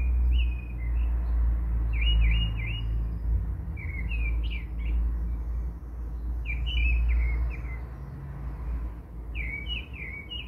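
Small bird chirping in short runs of quick notes about every two seconds, over a low rumble that eases near the end.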